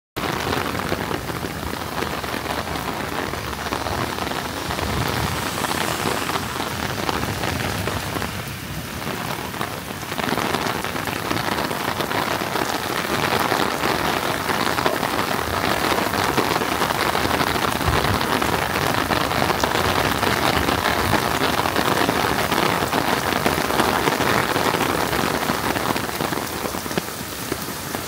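Heavy rain falling, a dense, steady hiss of downpour that starts abruptly.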